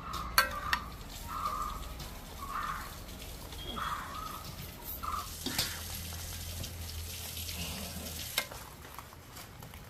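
A metal spoon scraping and clinking against a cooking pot as cooked chicken masala is spooned in over hot ghee, with a faint sizzle. There are sharp clinks about half a second in and again near the end.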